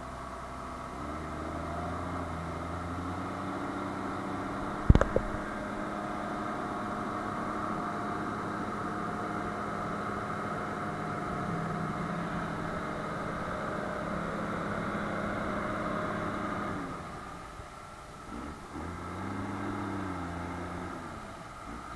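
Diesel tractor engines working under load, pulling tractors stuck in mud, with a steady note. A sharp knock comes about five seconds in, and near the end the engine note drops away, then rises and falls as the revs change.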